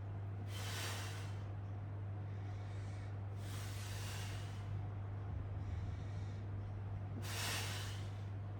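A person's strong breaths during core crunches, three in all, a few seconds apart, over a steady low electrical hum.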